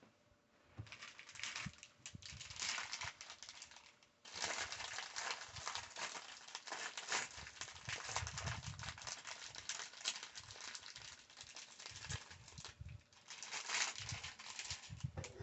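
A small clear plastic bag of LEGO pieces crinkling and rustling as it is handled, almost continuously, with a short pause about four seconds in and a few soft low thumps.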